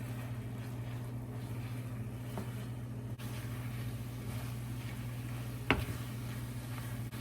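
Turkey sausage and eggs sizzling in a frying pan, a steady sizzle over a low steady hum, with one sharp knock a little under six seconds in.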